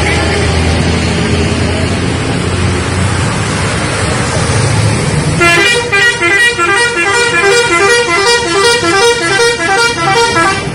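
Bus engine and road noise, then about five and a half seconds in a multi-tone 'telolet' bus horn starts playing a fast, repeating melody of quickly alternating notes.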